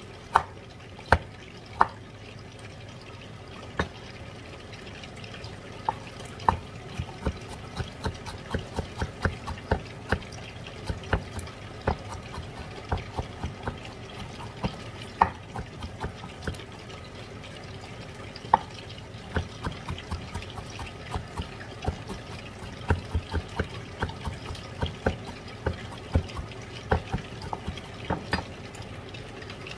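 Chef's knife cutting fresh ginger on a bamboo cutting board: sharp taps of the blade on the wood, a few spaced strokes at first, then quick irregular runs of several taps a second as the ginger is cut into strips and minced.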